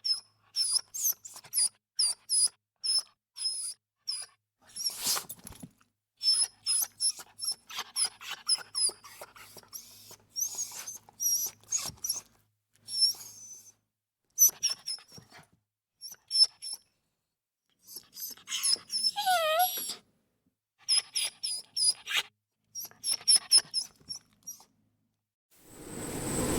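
A small animal giving runs of short, high-pitched squeaks, several a second, broken by pauses, with a falling whine about two-thirds of the way through. A steady hiss starts just before the end.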